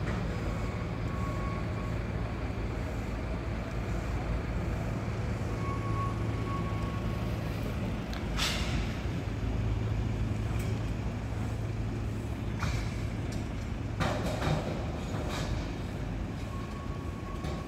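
Steady low hum of a vehicle engine running, over general city street noise, with a few sharp clacks partway through and one near the end.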